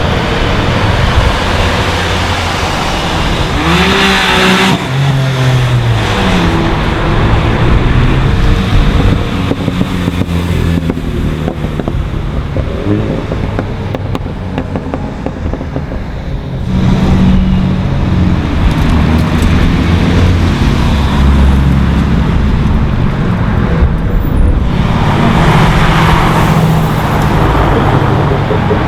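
Several modified cars driving past one after another, their engines revving and accelerating with pitch rising and falling as each goes by. It is briefly quieter just before halfway, then a louder car comes through.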